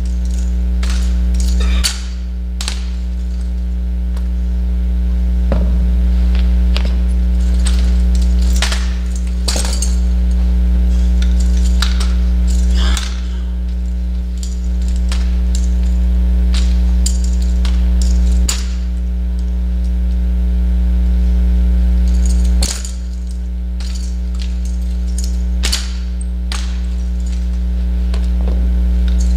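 Irregular sharp clacks and knocks of drill rifles being spun, caught, slapped and grounded by a rifle drill team, over a loud steady electrical hum.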